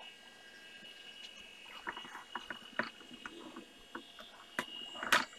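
Irregular clicking of keys being typed on a computer keyboard, a few strokes a second, starting about two seconds in and louder near the end, over a steady faint high whine.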